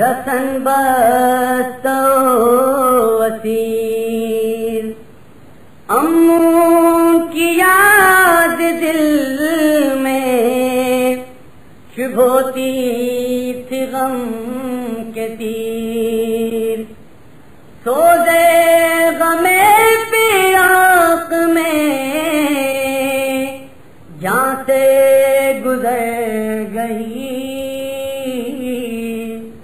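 An Urdu noha, a Shia lament, chanted by a solo male reciter without instruments, in long wavering melodic phrases with short pauses for breath between them.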